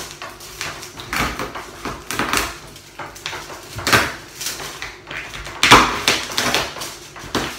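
A knife crunching and cracking through the tough shell of a cooked lobster, a run of irregular crunches and knocks with the loudest crack a little over halfway through.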